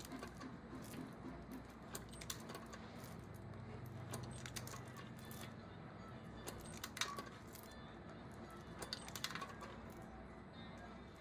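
Small metal ammunition parts clinking and jingling against each other in irregular clusters of sharp clicks, over a low steady machine hum.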